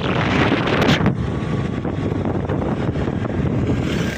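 Heavy wind noise buffeting the microphone over a rumble of road vehicles, with a louder gust about a second in.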